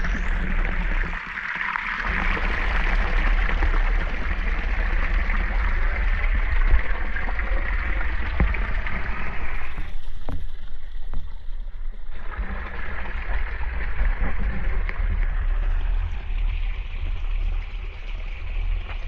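Creek water rushing and gurgling steadily over rock, with a low rumble underneath; the rush dips briefly about ten seconds in.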